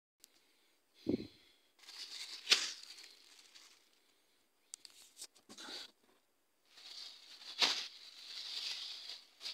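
A bunch of bananas being handled and set down, with a soft thump about a second in and irregular rustling and crinkling, plus a few short clicks.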